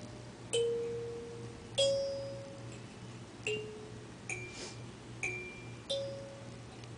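A doorbell chime melody picked out slowly, one note at a time, on a small tuned instrument with bell-like struck tones. Six notes at uneven intervals, each ringing out and fading.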